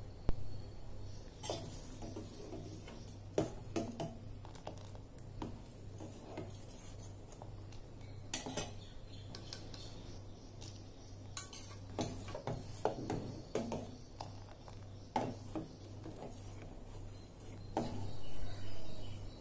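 A steel ladle stirring milk in a stainless steel pot, clinking and scraping against the pot now and then, over a steady low hum.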